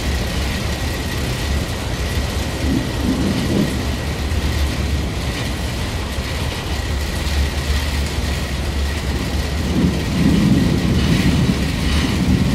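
Steady low engine rumble and hiss aboard a boat crossing the harbor, with a thin constant whine above it. The sound swells a little about ten seconds in.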